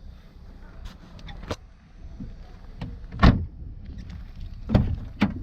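A few separate knocks and clunks, the loudest about three seconds in and two more close together near the end, over a low rumble.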